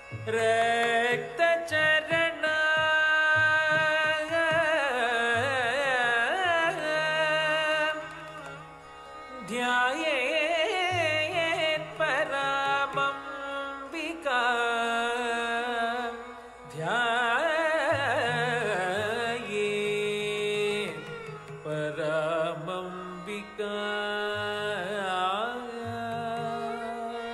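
Carnatic music for Bharatanatyam dance: a singer with heavily ornamented, bending pitch over sustained instrumental accompaniment, with percussion strokes in the first couple of seconds. The music thins out briefly twice, about a third and two-thirds of the way through.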